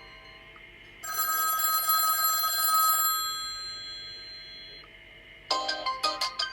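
Infinix Zero Ultra ringtone: a trilling, bell-like telephone ring held for about two seconds, then fading away. About five and a half seconds in, the next ringtone starts with a quick run of bright chiming notes.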